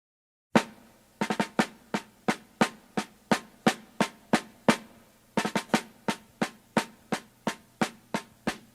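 Drum intro of soundtrack music: single sharp snare-type drum strikes in a steady march rhythm of about three a second, with a short break about five seconds in.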